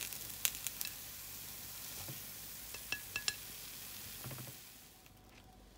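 Paniyaram sizzling in oil in a non-stick paniyaram pan, with a few light clicks as a wooden skewer taps the pan while the cooked dumplings are lifted out. The sizzling drops away near the end.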